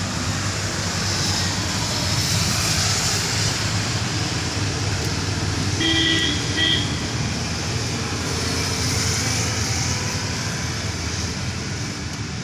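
Steady noise of rain and traffic on a wet road, with the hiss of tyres swelling twice as vehicles pass. Two short horn beeps about six seconds in.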